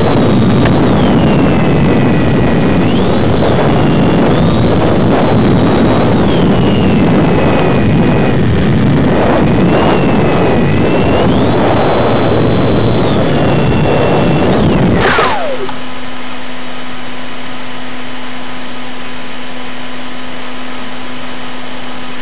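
A model airplane's motor and propeller heard from the onboard camera, with a whine that rises and falls with throttle over a loud wind-and-motor noise. About fifteen seconds in there is a short knock, the whine drops away quickly and the motor stops as the plane comes down in tall grass, leaving a steady low electrical hum and hiss.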